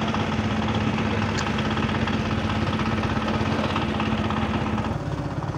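An engine idling steadily with an even low hum; its note drops a little about five seconds in.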